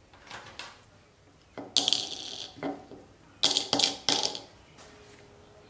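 Small ring-shaped parts dropped into a clear plastic cup, clattering and knocking against its walls. It comes in two bursts, one about a second and a half in and a second cluster of knocks around three and a half seconds in.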